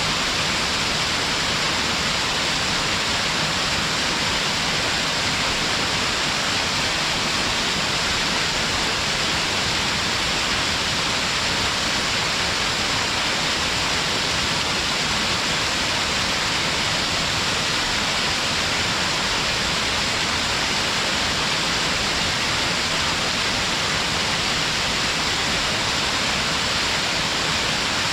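A small stepped waterfall on a mountain stream: a steady, even rush of falling water with no breaks or changes.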